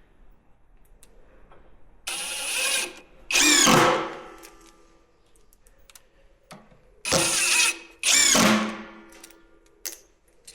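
Power drill driving screws through the barrel hoops into the white oak staves, in two pairs of short runs. Each second run ends in a falling whine as the motor spins down.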